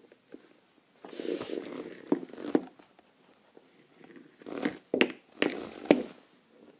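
Handling noise of plastic toy horse and rider figures moved by hand close to the microphone: two spells of rustling with several sharp plastic taps and clicks.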